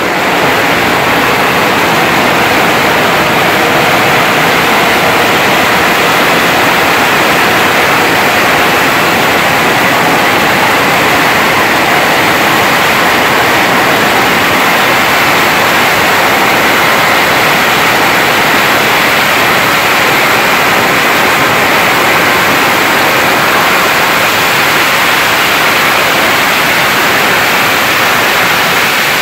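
Long strings of firecrackers going off without a break, so many bangs so close together that they merge into a loud, steady crackling roar.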